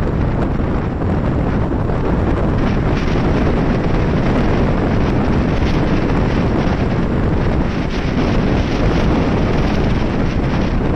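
Loud, steady wind noise battering the microphone of a camera on a motorcycle at riding speed, burying the bike's own sound.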